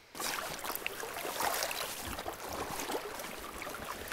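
Stream water splashing and dripping around a landing net as a fish is lifted out of the shallows, with many small irregular splashes over the steady rush of the current.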